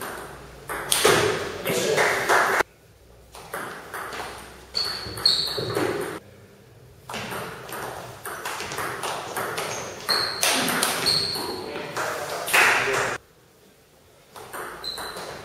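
Table tennis being played: the celluloid ball clicking off the rubber paddles and bouncing on the table in quick irregular exchanges, with a short pause near the end before the next serve.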